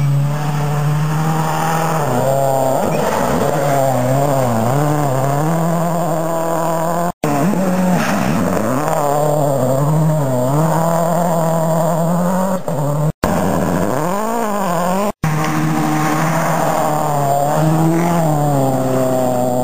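Ford Focus RS WRC rally car's turbocharged four-cylinder engine revving hard while the car drifts through the stage, pitch climbing and dropping again and again with throttle and gear changes. The sound breaks off abruptly three times where shots are cut together.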